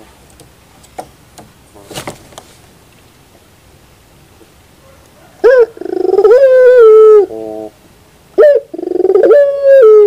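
Puter pelung, a Barbary dove bred for its long coo, calling twice in the second half. Each phrase is a short sharp note, then a long drawn-out tremulous coo that sags slightly in pitch, ending in a lower rolling note. A few faint knocks come before the calls.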